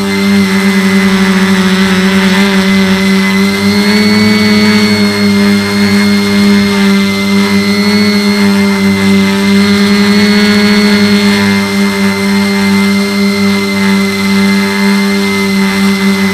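Quadcopter's four 1050 kV brushless motors spinning 9x5 propellers in flight, a loud steady hum with a slight rise and fall in pitch.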